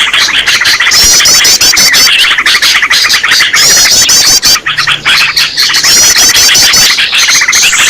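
Recorded chorus of small songbirds chattering and twittering densely without a break, with a higher trilled phrase repeating about every two to three seconds.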